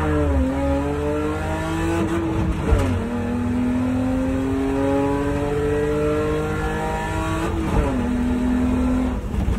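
Race car engine heard from inside the stripped cabin, accelerating hard under load up a hillclimb course. The pitch climbs in each gear and drops sharply at upshifts about half a second in, about three seconds in and near eight seconds, with a brief lift near the end.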